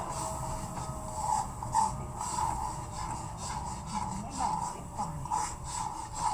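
A spoon scraping around a kadhai while stirring besan halwa, roasted gram flour in ghee with warm water being worked in, in short rhythmic strokes about two a second.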